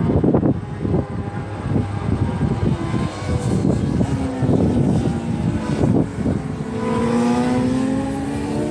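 Gusty wind rumble on the microphone of a camera aircraft flying over the racetrack. About two-thirds of the way through, the steady hum of its propellers comes through in several tones that drift slightly downward.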